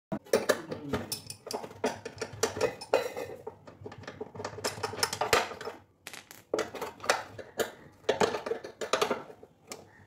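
Irregular metallic clinks and clatter: many quick knocks, close together, with a short pause partway through, as metal parts and tools are handled.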